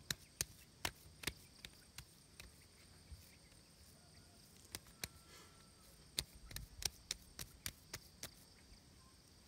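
Repeated sharp blows, about two to three a second, with a short pause partway through, over a steady high-pitched drone of insects.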